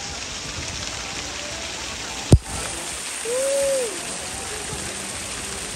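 Water spraying and falling into a shallow pool, a steady hiss and patter like heavy rain. A sharp knock stands out a little over two seconds in, and a brief call that rises and falls in pitch follows about a second later.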